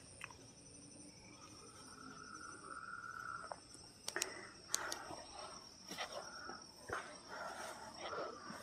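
Night insects, crickets among them, keep up a steady high-pitched chirring. From about four seconds in, scattered crunching and rustling steps break in.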